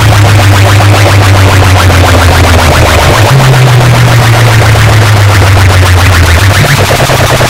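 Electronic dance music blasted at full power through DJ sound-box speaker rigs in a sound competition. The heavy bass line dominates and steps up in pitch about three seconds in, and the whole mix is loud and distorted.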